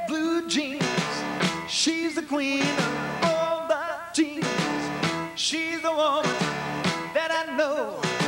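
Live band playing a 1950s-style rock and roll number, with a high lead vocal that holds wavering notes.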